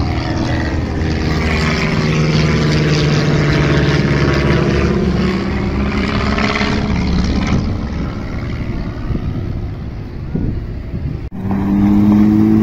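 A piston-engined aerobatic biplane flying overhead: a steady engine drone with a sweeping, phasing sound that swells and then fades as it passes. After an abrupt cut near the end, a Porsche 911 GT3 RS's naturally aspirated flat-six runs steadily and loudly as the car rolls by.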